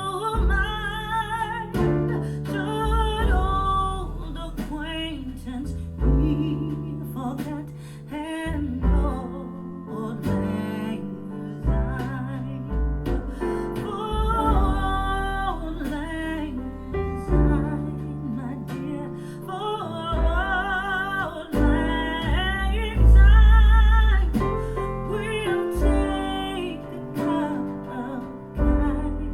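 A song with a singing voice held in long, wavering notes over piano, guitar and deep bass, played back through Fyne Audio F700 loudspeakers.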